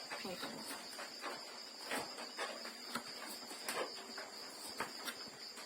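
Insects chirring steadily in one continuous high drone, with a scattering of light clicks and taps now and then.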